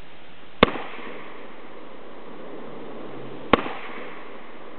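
Two shots from a semi-automatic AR-15 rifle, about three seconds apart, each a sharp crack with a short echo trailing after it.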